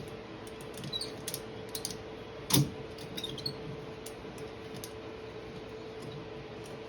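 Ratchet strap being worked by hand: scattered light metallic clicks and clinks, with one louder clack about two and a half seconds in, over a steady faint hum.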